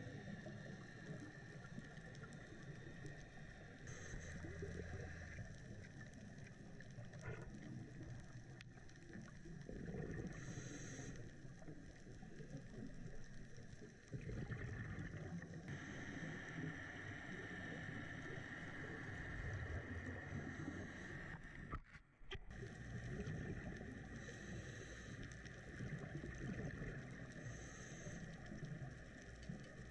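Underwater ambience through a dive camera's housing: a steady wash of water noise with short hissing bursts of scuba exhaust bubbles about every five or six seconds, the diver's breathing through the regulator. The sound drops out briefly a little past the middle.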